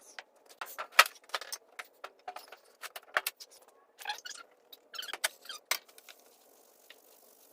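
An irregular run of sharp clicks, taps and scrapes, like hard objects being handled, with a few short squeaks about four to five seconds in.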